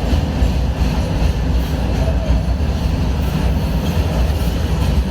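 Union Pacific freight train rolling past close by: a steady, loud low rumble of the cars' wheels on the rails.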